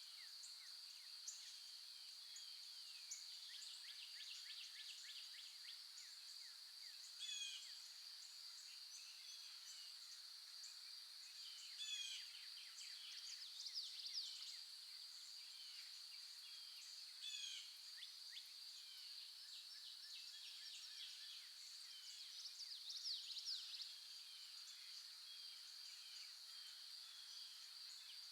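Several birds chirping with short, quick calls and brief trills at intervals, over a steady high-pitched insect drone.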